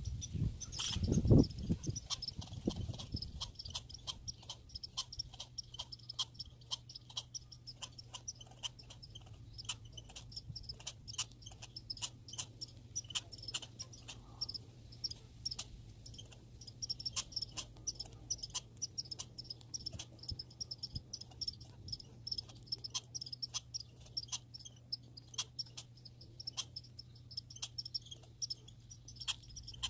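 A squirrel chewing: a steady run of small, crisp, irregular clicks. Under it runs a steady low hum, and there is a louder low thump or rustle about a second in.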